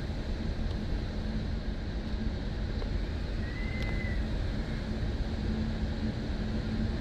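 Hurricane wind and heavy rain: a steady rushing noise, heaviest in the low end, with a faint steady hum underneath and a brief faint high whistle about halfway through.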